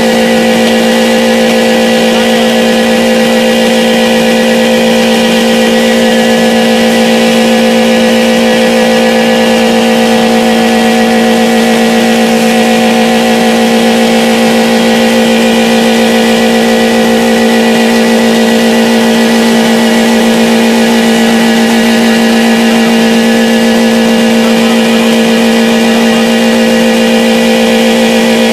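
Car engine held at steady high revs at full throttle, running loud with an unchanging pitch, being run flat out to blow it.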